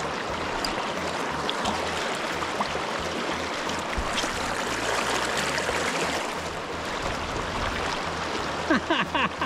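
Steady rushing of a river's flowing water, with a short vocal sound near the end.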